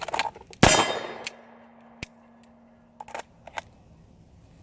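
Pistol drawn from a holster and fired once about two thirds of a second in, a single loud shot with a ringing tail, after a few light clicks of the draw. A few light clicks follow as the gun is handled.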